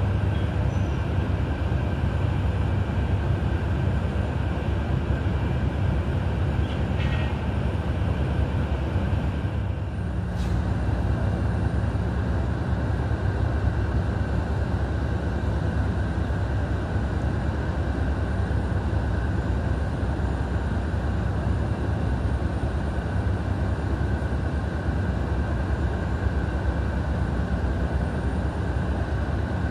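Steady aircraft turbine noise on an airport apron: a low rumble with thin, steady high whine tones over it.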